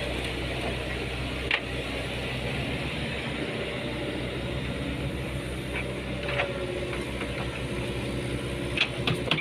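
Excavator's diesel engine running steadily while the machine is driven up onto a truck for transport. A sharp knock about a second and a half in, and several metallic clanks near the end.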